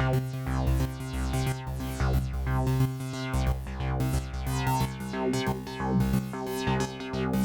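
Techno played live on a Behringer DeepMind 12 polyphonic analog synthesizer, with sustained synth notes over a steady, regular drum-machine beat from a Roland TR-8.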